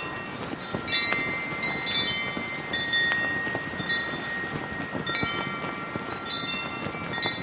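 Brass wind chimes ringing in heavy wind, struck in clusters about once a second, their tones ringing on and overlapping. Beneath them is a steady rush of wind with a flag flapping.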